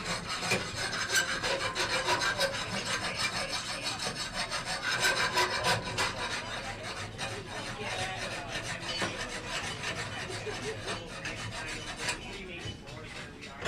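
Rapid, continuous hand scraping on a forged steel workpiece, many quick strokes a second, as with a file or wire brush.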